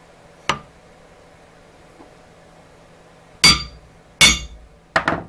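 Sharp metallic knocks and clinks of a thick aluminum plate being set down and shifted on an MDF board: one light knock early, then three loud ones in quick succession in the second half.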